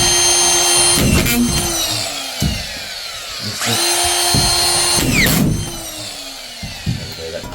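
Power screwdriver driving drywall screws into a ceiling, twice: each time the motor spins up suddenly, whines at a steady pitch with a short rattle as the screw is driven, then winds down falling in pitch once the trigger is released.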